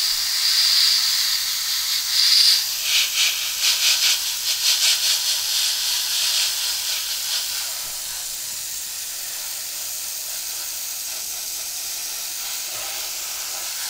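Hand-held airbrush hissing as it sprays thinned paint. The hiss pulses and flutters at first, then settles to a steadier, slightly quieter hiss from about eight seconds in.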